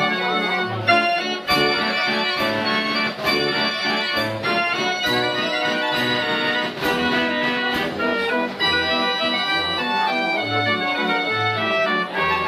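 Ruth model 33 fairground organ playing a tune: pipe melody over a pulsing bass, with sharp percussion strokes roughly every second.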